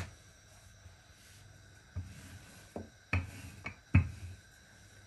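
Wooden rolling pin working paratha dough on a countertop, with a handful of short knocks between about two and four seconds in as the pin is set down and lifted.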